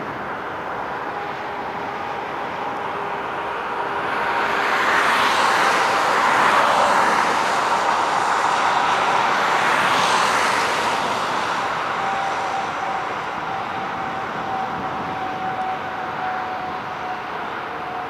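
General Electric CF34 turbofan engines of a taxiing Embraer 190 jet airliner: a steady whine over a rushing noise that swells from about four seconds in and eases off after about eleven seconds.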